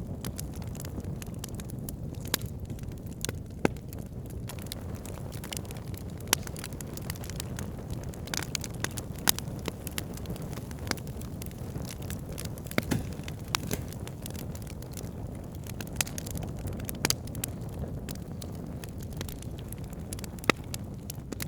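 Wood campfire burning: irregular sharp crackles and pops, a few louder snaps among them, over a steady low rumble.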